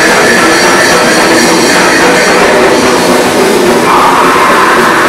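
Live punk rock band playing loud: electric guitar and a drum kit, with shouted vocals.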